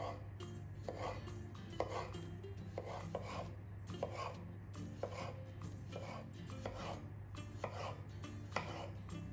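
Kitchen knife cutting a cucumber on a bamboo cutting board, with short crisp cuts at about two a second.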